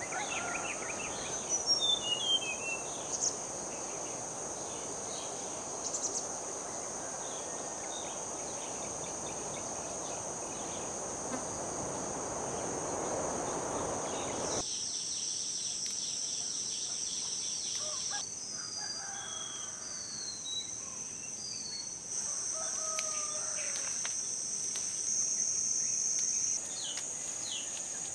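Rural ambience: insects trilling steadily at a high pitch, small birds chirping here and there, and a rooster crowing in the later part. A low rushing noise under the first half cuts off suddenly about halfway through.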